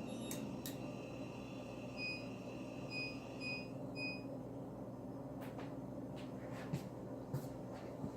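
Four short electronic beeps from the Whirlpool WRF989SDAM00 refrigerator's front control panel as buttons are pressed to enter diagnostic mode, over a steady low hum. A few light clicks follow.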